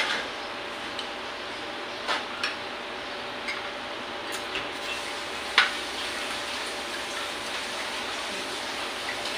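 A few light clicks and taps of spoons and garlic bread on ceramic plates and bowls during a meal, the sharpest about halfway through, over a steady background hiss.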